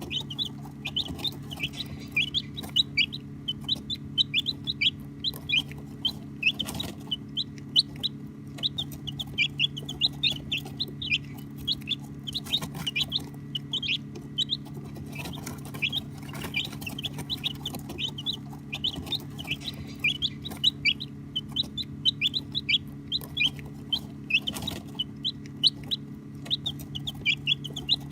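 Baby chicks peeping continuously: many short, high, mostly falling peeps overlapping, over a steady low hum.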